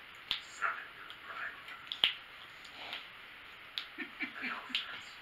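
Scattered sharp clicks and small mouth and utensil noises of people eating at a table, the loudest click about two seconds in. A few brief low hummed voice sounds come a little after four seconds.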